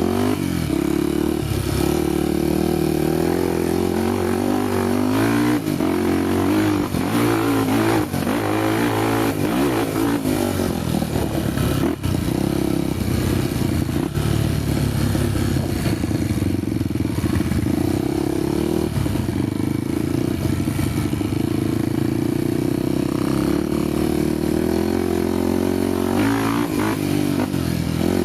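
Honda XR250 Tornado's single-cylinder four-stroke engine running while ridden on a dirt trail, its revs rising and falling again and again, with a few sharp knocks along the way.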